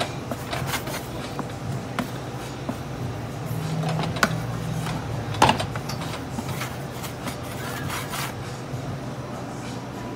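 Pizza dough being handled in a floured dough tray: rubbing and scraping, with scattered sharp clicks and knocks of a scraper and hands against the tray. The loudest knock comes about halfway through. A low steady hum runs underneath.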